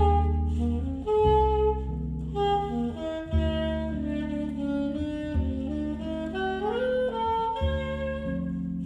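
Jazz alto saxophone playing a slow melody of held notes over sustained low accompaniment, reproduced by Reezoldini Odeon L4 loudspeakers driven by a Tarim Audio Flood amplifier.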